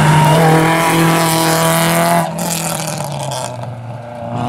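Rally car engine running hard at high revs, easing off about two seconds in, then revving up again near the end.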